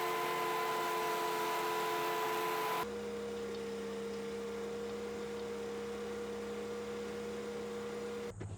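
A steady mechanical hum over hiss, made of several even tones. About three seconds in it switches abruptly to a lower, different hum, and it cuts off just before the end.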